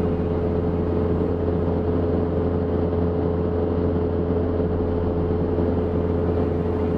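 1969 Citabria GCBC's four-cylinder Lycoming engine and propeller droning steadily in cruise flight, heard inside the cabin.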